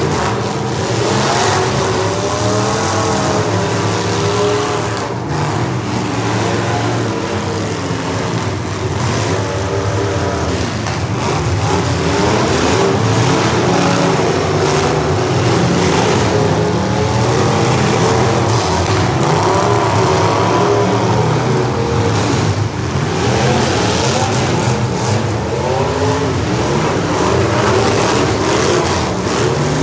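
Several demolition derby cars' engines running hard together, revving up and down over and over so that their pitches keep rising and falling across each other.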